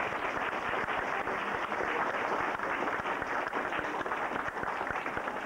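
Audience applauding: many hands clapping at once in a dense, even patter.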